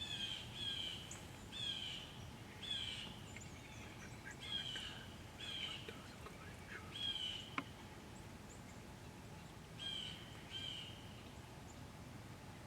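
Wild birds calling outdoors: a run of short, downward-slurred calls repeated about once a second, pausing briefly past the middle, with one sharp click a little past halfway.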